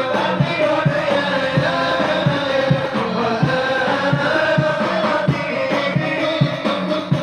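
A group chanting sholawat, devotional Islamic praise songs, in unison over a steady drum beat of about two or three strikes a second.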